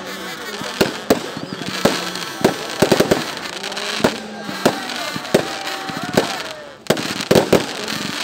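Aerial fireworks bursting: a string of sharp bangs at uneven intervals, bunched into quick clusters about three seconds in and again near the end.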